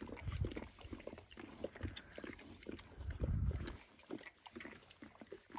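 Eleven-day-old Dalmatian puppies squirming and grunting softly, with scattered small clicks and a couple of low bumps, one just after the start and one about three seconds in.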